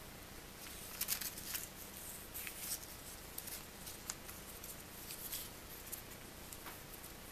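A narrow strip of origami paper being folded and creased by hand: scattered light, crisp crackles and rustles, busiest from about one second in to about three seconds in.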